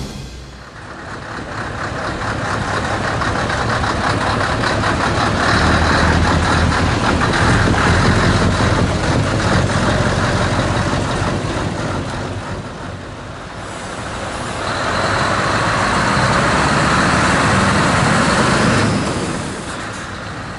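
Show trucks' diesel engines with open exhaust pipes running loud as the trucks pull away, in two swells: one building over the first dozen seconds, a dip, then a second truck loud from about fifteen to nineteen seconds in before fading.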